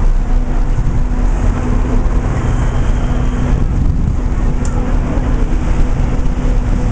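Busy city street ambience: a steady rumble of road traffic with a constant low hum.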